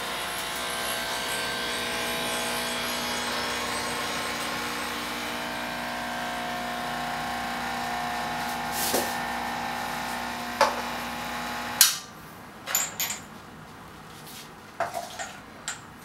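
Ascaso Dream Up V2 espresso machine's pump running with a steady hum, pushing hot water through the portafilter into the cups to preheat them. It cuts off suddenly about twelve seconds in, followed by a few light clicks and knocks of cups being handled.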